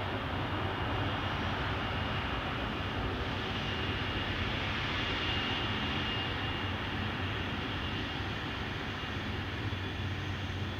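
Wide-body jet airliner's engines running steadily: a continuous rush with a thin high whine that grows stronger about midway and then eases.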